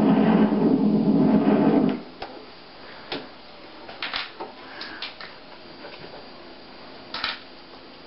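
The rumble of a film explosion played through a TV speaker, stopping abruptly about two seconds in. After it comes a low background with scattered faint clicks and knocks.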